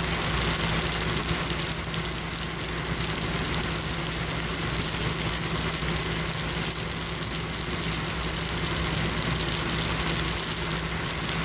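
Steady rain falling on wet pavement, an even hiss, with a steady low engine hum of idling underneath.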